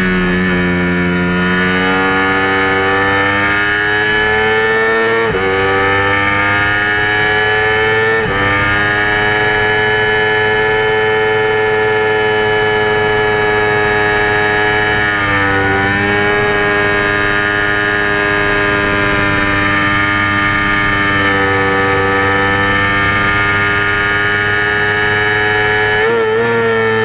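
Yamaha R25's 250 cc parallel-twin engine, with an AHM Z1R exhaust, running at high revs under racing load. Its pitch climbs and drops sharply at upshifts about five and eight seconds in, then holds a high, steady whine with a brief dip around fifteen seconds and some wavering near the end.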